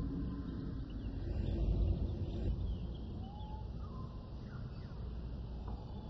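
Prehistoric-jungle ambience soundscape: a steady low rumble with faint scattered bird-like chirps, and a low drawn-out call that fades out in the first couple of seconds.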